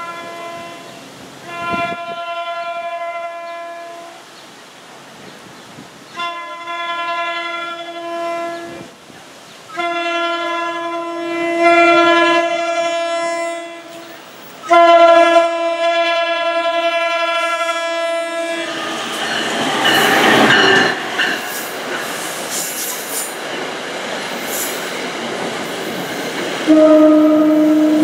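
NJ Transit commuter train sounding its horn in about five long blasts as it approaches, then the noise of the train passing close by, with the horn sounding again near the end.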